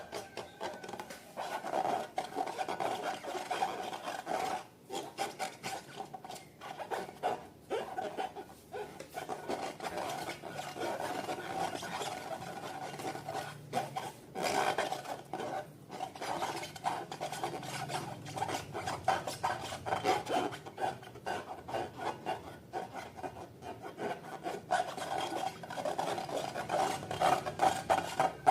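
Slime being mixed and worked, a continuous run of irregular scraping and rubbing noises.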